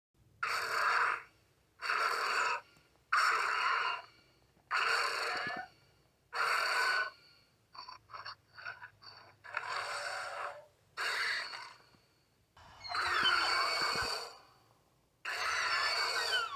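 Monster sound effects for a fictional kaiju: a series of short, breathy hissing calls, each under a second, then a quick run of short chirps. Longer hissing calls follow, the last two with a falling screech.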